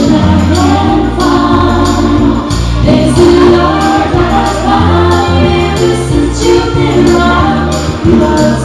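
A woman singing a song into a handheld microphone over musical accompaniment, with a bass line that changes note every second or so and a steady percussive beat.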